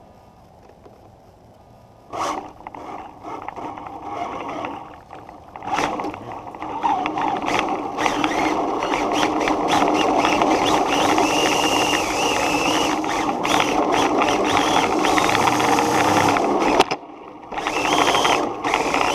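Radio-controlled car driving over pavement with the camera riding on it. A motor whine wavers up and down with the throttle over a rough rush of tyre and wind noise. It starts suddenly about two seconds in and cuts out briefly near the end.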